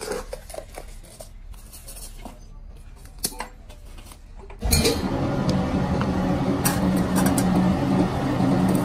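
Light clinks and scrapes from handling a gritty fill, then, about halfway through, loud steady machinery of a dumbbell mould press takes over abruptly with a low hum.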